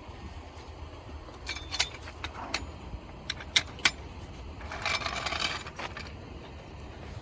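Sharp metallic clinks of tools being handled, several single knocks, then a denser rattle lasting about a second near the middle. Low wind rumble on the microphone.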